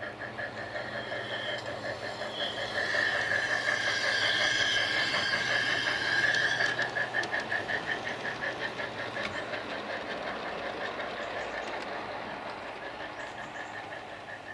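Garden-railway model train rolling past on outdoor track, its wheels clattering over the rails, loudest a few seconds in and then fading away. A steady rapid pulsing chirp runs underneath throughout.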